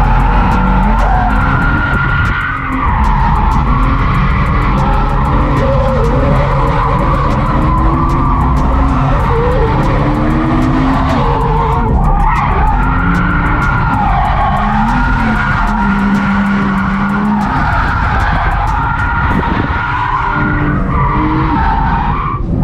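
BMW E36 328i's 2.8-litre M52B28 straight-six revving up and down hard through a drift, with the rear tyres skidding and screeching.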